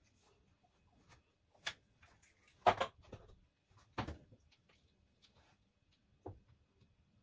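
A few separate clicks and knocks of a hand tool and parts being handled on a metal lathe's carriage, the loudest a short cluster of knocks about three seconds in, with faint ticks between.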